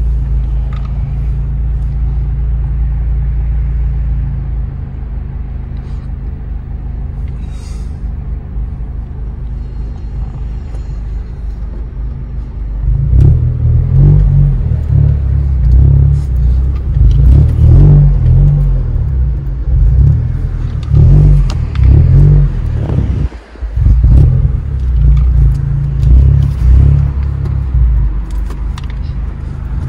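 Honda Civic's K24 four-cylinder with an aftermarket downpipe, heard from inside the cabin: a steady low drone at first. About thirteen seconds in, it turns loud and uneven as the car accelerates, the revs surging and easing off repeatedly, with one brief sudden drop in the noise past the middle.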